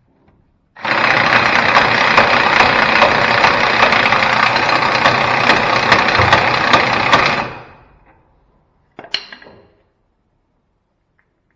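Impact wrench hammering on a nut at the tie rod end of a truck's front axle, running without a break for about seven seconds and then stopping. A single sharp metallic clank follows a couple of seconds later.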